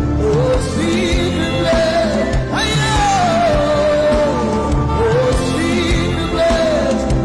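Worship music with a singing voice carrying a gliding melody over a steady beat.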